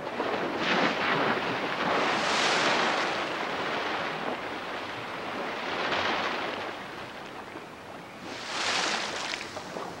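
Water splashing as an osprey hits the surface and beats its wings on the water after a plunge dive. The rushing splash noise swells three times: about a second or two in, around six seconds, and near nine seconds.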